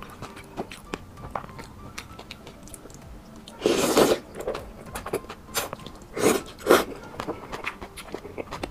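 Close-miked eating sounds: soft wet chewing and lip smacks, with a loud slurp of noodles about three and a half seconds in and two shorter slurps around six seconds in.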